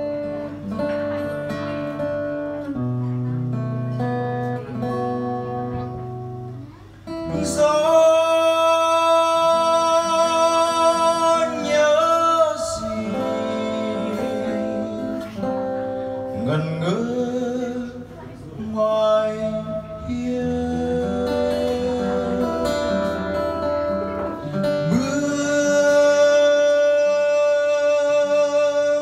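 Acoustic guitar playing a ballad accompaniment, joined about seven seconds in by a young man singing over it into a microphone, holding long notes and sliding between them.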